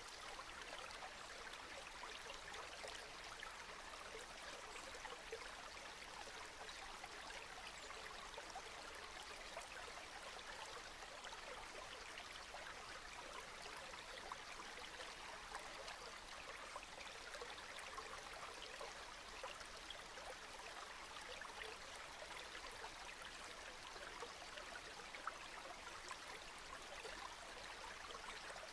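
Steady rain falling, a dense, even hiss of many small drop hits with no change throughout.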